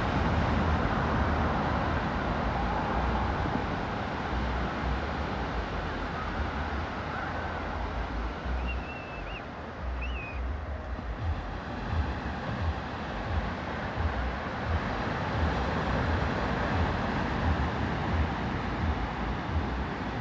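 Wind gusting on a phone microphone over a steady rush of distant surf and highway traffic, with a couple of brief high chirps about nine and ten seconds in.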